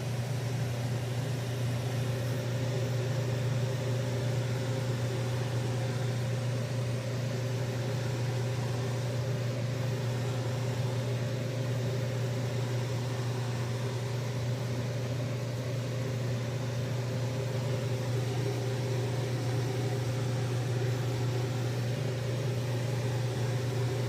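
Electric fan running steadily: a low, even hum with a constant rush of air.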